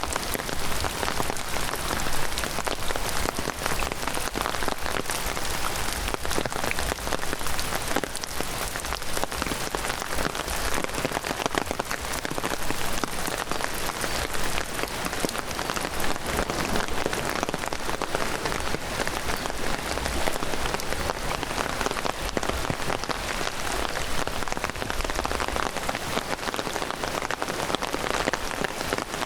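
Heavy downpour: steady rain with a dense patter of drops.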